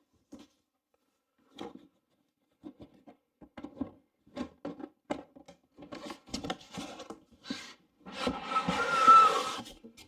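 Cardboard shipping box being opened by hand: scattered light taps and scrapes on the cardboard, then a loud rasp of about two seconds near the end as the taped flaps are pulled apart.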